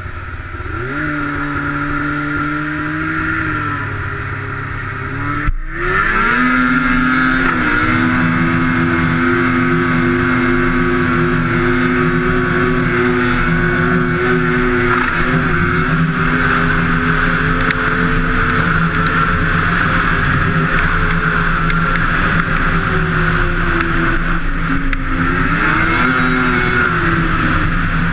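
Two-stroke snowmobile engine running at high revs, as when a sled is skipped across open water. Its pitch rises after a brief break about five seconds in, holds high and steady for a long stretch, then dips and climbs again near the end.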